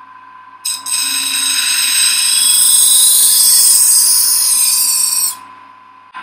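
A kitchen knife's edge ground against a spinning sharpening wheel on an electric motor: a loud, high-pitched grinding hiss starting just under a second in and stopping about five seconds in, over the motor's steady hum. The blade goes back onto the wheel right at the end.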